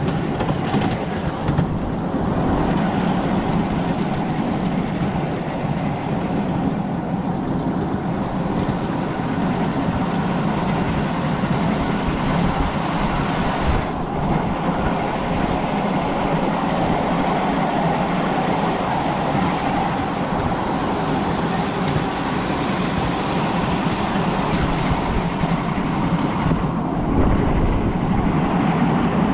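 Ride-on miniature railway train running along its narrow-gauge track, heard from aboard the passenger cars: a steady rumble of wheels on rail.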